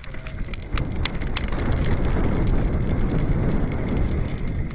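Mountain bike rolling fast over grass and gravel, its knobby tyres crunching and the bike rattling with many sharp clicks, under heavy wind rumble on the camera microphone. The noise gets louder about a second in.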